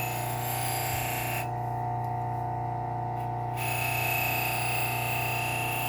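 Low-speed sander running a Scotch-Brite wheel with a steady hum as a hunting knife's edge is polished on it. The hiss of the blade on the wheel stops for about two seconds midway, then comes back.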